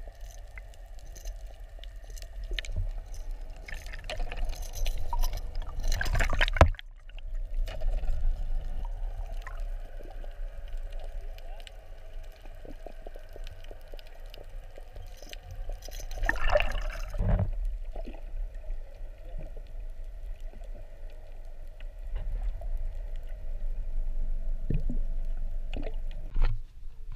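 Water heard from underwater: muffled gurgling and sloshing over a steady low rumble, with two louder surges about six and seventeen seconds in.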